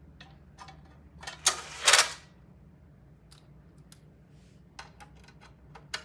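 Clicks and light knocks of metal parts being handled while an insert blower is mounted to its bracket, with a short scraping rush about one and a half to two seconds in.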